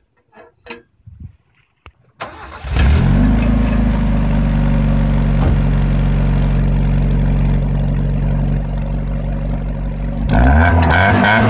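Mazda Miata's four-cylinder engine cranking briefly and catching about two seconds in, then idling steadily through an upturned Boso-style exhaust pipe fitted with a flapper cap. Near the end it is revved, the pitch rising and falling.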